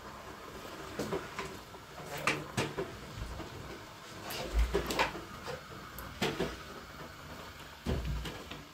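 Irregular knocks and clicks of objects being handled, a dozen or so spread unevenly, two of them with a dull thump.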